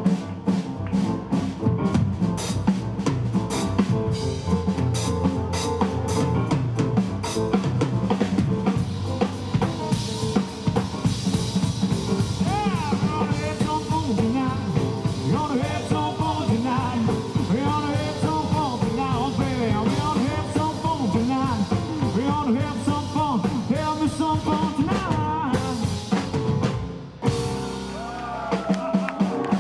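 Live rock-and-roll band playing: a drum kit with rimshots, snare and bass drum over upright double bass and piano, with a woman's voice holding wavering notes from about twelve seconds in. The music drops back briefly about 27 seconds in, then carries on.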